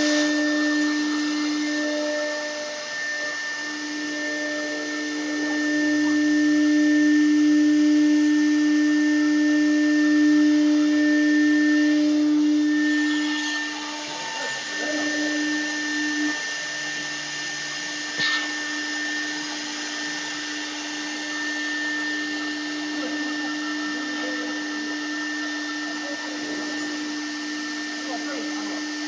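CNC router spindle running at high speed with its bit cutting a PVC board, a steady two-tone whine over cutting noise. It grows louder for a stretch starting about six seconds in. A single sharp tap comes about eighteen seconds in.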